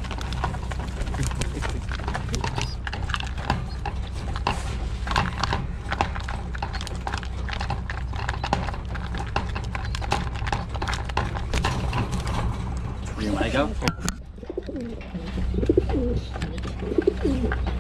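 Pigeons pecking mixed seed from a plastic feeder, making many quick irregular clicks and ticks. Pigeons coo in wavering calls near the end. A steady low hum runs underneath.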